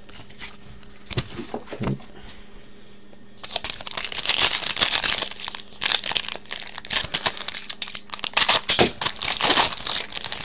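A trading card pack's wrapper being torn open and crinkled, loud and continuous from about three seconds in, after a few soft clicks of card handling.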